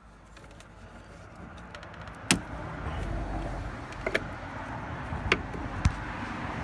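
Hands working a snowmobile carburetor and its rubber hoses loose from the engine: a rustle of handling that builds over the first few seconds, with several sharp clicks and knocks of plastic and metal parts.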